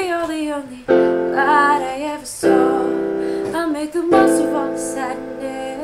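A woman singing a slow melody over piano chords, a new chord struck about every second and a half.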